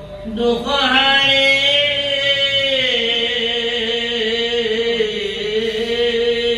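A man chanting a line of Assamese devotional verse, the last word drawn out into one long held note that dips slightly partway through and then stays steady.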